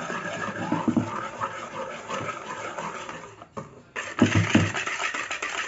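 Wire whisk stirring brownie batter in a plastic bowl, the wires scraping and swishing against the bowl. The stirring stops briefly about three and a half seconds in, then starts again with a few dull knocks.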